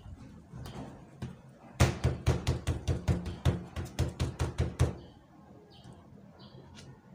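A quick run of about fifteen sharp knocks, some five a second, lasting about three seconds and starting about two seconds in: hands patting and tapping down a folded piece of leather-like sheet on a wooden table, pressing it so the cut outline marks the layer beneath.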